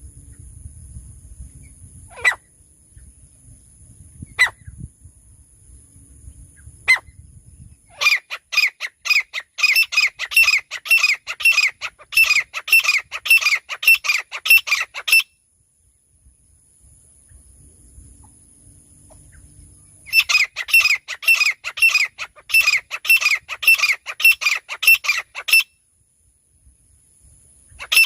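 Francolin (teetar) calling: a few single sharp, falling notes, then a long rapid series of about three or four harsh calls a second, a pause, and a second run of about five seconds.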